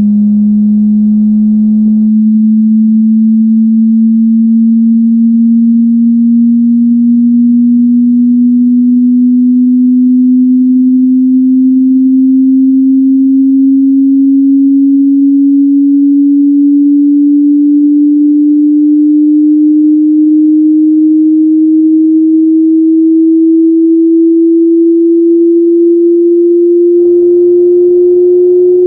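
Hearing-test sine tone: a single low, pure, loud tone gliding slowly and steadily upward in pitch, a frequency sweep used to check hearing.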